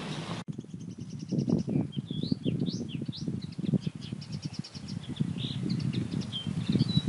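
Small songbirds singing, with quick trills, rising whistled notes and short chirps, over gusty low wind noise and rustling. The sound changes abruptly about half a second in.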